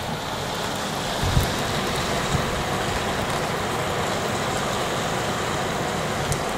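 Very heavy rain falling, a steady even rush of noise.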